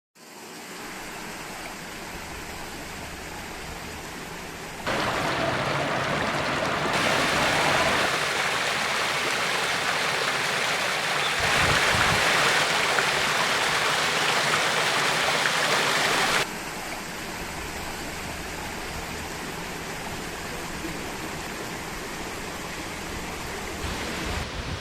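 Steady rushing of running water from a stream, with no clear tones or rhythm. Its loudness jumps up or down abruptly a few times: louder about 5 seconds in, quieter about 16 seconds in.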